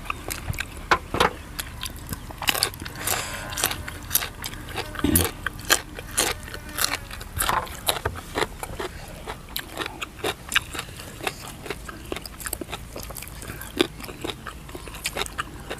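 People biting and chewing crunchy raw vegetables such as yardlong beans, with a steady run of crisp crunches and clicks.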